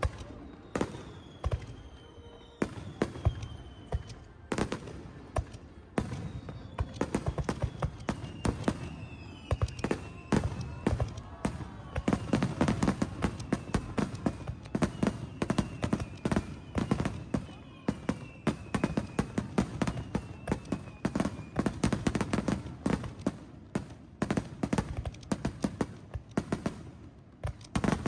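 Fireworks display: a rapid, dense string of bangs and crackling bursts, thickest and loudest in the middle, with several falling whistles over it.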